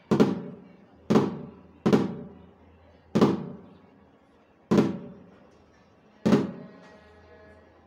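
Snare drum struck with sticks in slow, single flams: six separate strokes about one to one and a half seconds apart, each ringing out briefly.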